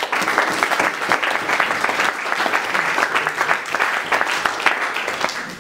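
Audience applauding: many hands clapping in a dense patter that fades away near the end.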